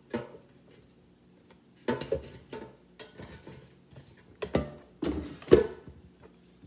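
Sharp knocks and clatter of a utensil against an air fryer basket while chicken stuck to the bottom is pried loose: about six hits with a brief ring, the loudest cluster about five seconds in as the basket is taken by its handle.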